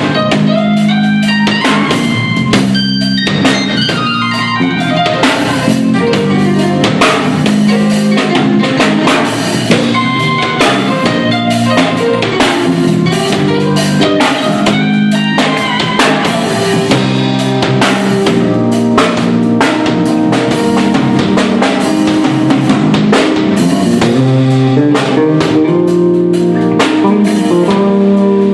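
Instrumental band of electric bass, keyboard and drum kit playing together, with a steady drum beat under held bass notes and keyboard chords.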